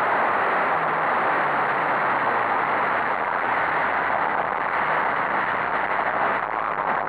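Onboard sound of a folkrace car on the move: a steady rush of wind and road noise with a faint low engine note underneath.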